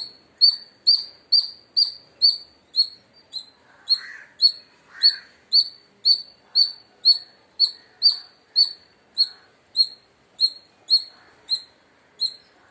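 Indian palm squirrel giving its loud alarm call: a long, even run of sharp, high chirps, about two a second, that stops just before the end.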